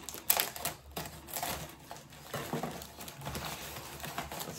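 Crinkling and rustling of a shopping bag and its contents being handled, in short irregular spurts.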